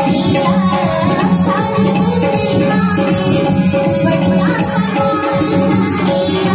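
Live band music with a fast, even shaker-like percussion beat over steady held notes.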